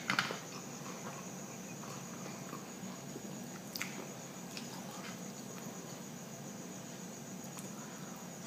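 Quiet hand-eating sounds: faint smacks of chewing and clicks of fingers picking at rice on a plate. A couple of sharper clicks come right at the start, over a steady high-pitched background hum.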